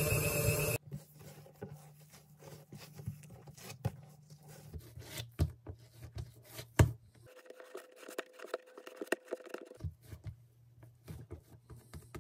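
A stand mixer kneading dough runs loud and steady, then cuts off under a second in. After that, hands handle and shape a soft ball of bread dough on a silicone mat, making quiet pats, scrapes, sticky pulls and small taps, one sharper than the rest.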